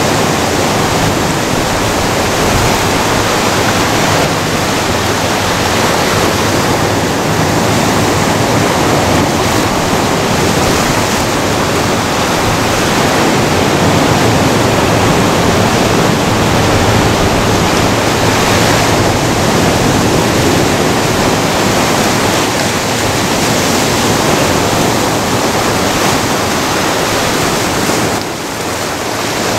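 Ocean surf breaking and washing over a rocky beach: a loud, steady rush of water that dips briefly near the end.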